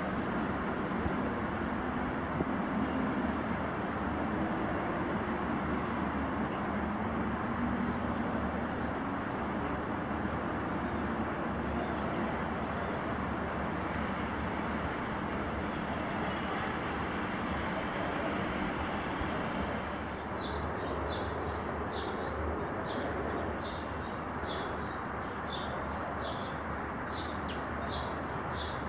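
Steady background drone of distant road traffic, with a low hum that wavers slowly. About two-thirds of the way through, a small bird starts chirping over it, several short chirps a second.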